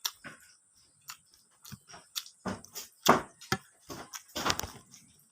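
Close-miked eating of rice with young bamboo shoots: irregular chewing and crunching with wet mouth sounds, loudest a little after halfway.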